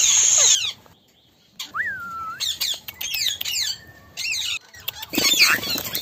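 Rose-ringed parakeets calling: the loud end of a rising call, then after a short pause a whistled note that rises and falls, followed by a run of quick, falling chirps and squawks and a harsher, noisier burst about five seconds in.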